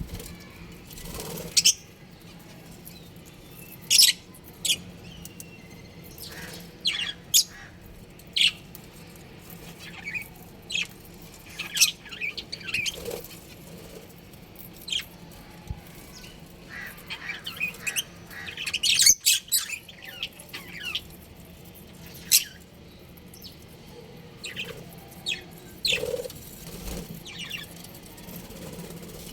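Budgerigars chirping: short, sharp, high calls at irregular intervals, with a busier run of calls about two-thirds of the way through.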